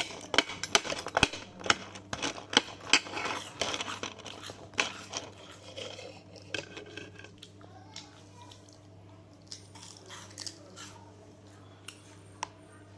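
A spoon clinking and scraping against a bowl of Chiki Balls puffed corn snacks, with quick sharp clicks. These are busiest in the first five seconds and then thin out and grow quieter.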